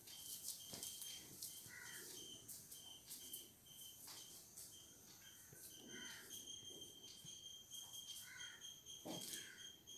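Faint dry clicks and rattles of raw peanuts being stirred with a spatula in a dry kadai while they roast. A high chirping repeats steadily in the background.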